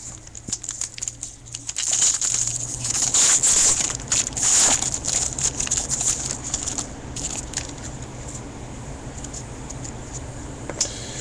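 Foil wrapper of a baseball card pack being torn open and crinkled, a dense run of crackling rustles, loudest in the first half, then lighter handling.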